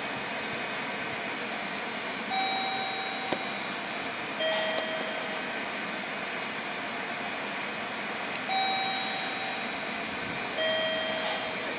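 Two-tone electronic chime, a higher tone then a lower one about two seconds apart, sounding twice, over the steady hum of an electric train stopped at the platform.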